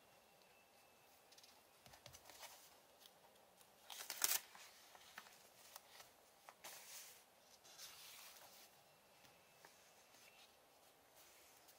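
Pages of a handmade eco-dyed paper booklet being turned by hand: soft paper rustles and light taps, the loudest a brief flick of a page about four seconds in, with more rustling around seven and eight seconds.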